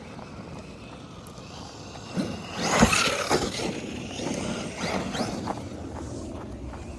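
A Traxxas Maxx RC monster truck driving, its brushless electric motor whining up and down as it speeds up and slows, with a sharp knock just under three seconds in.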